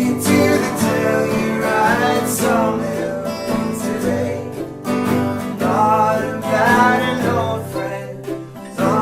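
Acoustic guitar music in a country-folk style, with a bending melody line over the strumming.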